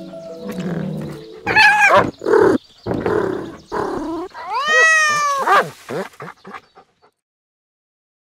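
Cats meowing: a few short meows, then one long meow that rises and falls about five seconds in. The sound stops about a second before the end.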